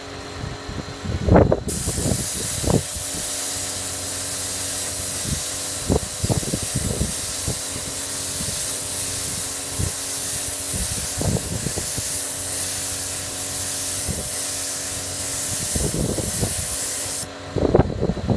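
Air spray gun spraying a coating onto ceramic tile: a steady hiss that starts about two seconds in and cuts off suddenly near the end, with a few low thumps and a faint steady hum underneath.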